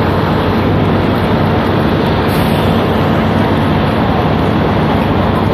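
Fire engines' diesel engines running steadily, a low even hum under a loud haze of street noise.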